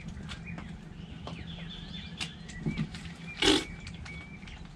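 Playing cards being played onto a wooden table: a few light clicks and taps, and one louder slap about three and a half seconds in, over a steady low hum.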